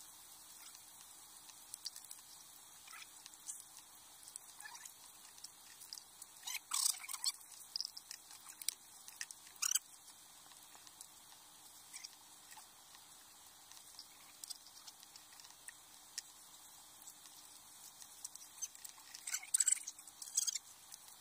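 Faint scattered clicks and scrapes of people eating and handling plastic plates, with small clusters of sharper ticks about a third of the way in and near the end.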